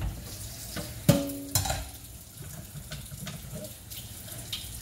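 Kitchen handling sounds: a sharp metal clank that rings on briefly about a second in, then a second knock, followed by a steady rushing hiss.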